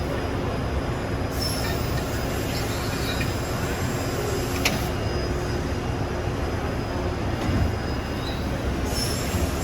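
Steady mechanical running noise from a CNC mandrel tube bender's servo and hydraulic drive, with a single sharp click about halfway through.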